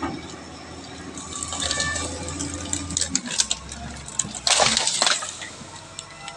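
A machine's engine running low and steady, with scattered clicks and a loud rushing burst lasting about a second near the end.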